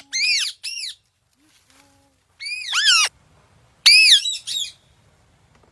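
Parrot squawking in short, high, arching calls, in three quick clusters of two or three calls each; the last cluster is about 4 seconds in.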